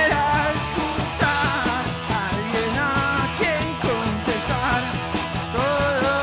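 Rock band playing a song live: a man sings the lead vocal over a drum kit with cymbals and the rest of the band.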